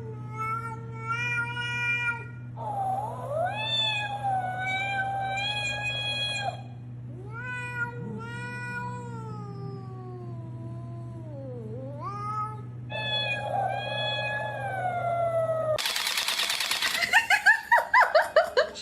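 A domestic cat giving four long, drawn-out meows, each held for a few seconds, one sliding steadily down in pitch, over a steady low hum. Near the end they give way to a loud rushing noise that pulses rapidly.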